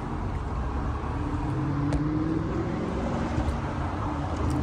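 Steady low motor-vehicle rumble with a faint engine drone that drifts slightly in pitch, and a single sharp click about two seconds in.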